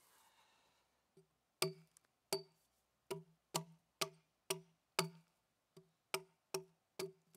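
Hatchet chopping into a log: about a dozen sharp, woody knocks, roughly two a second, starting about a second in.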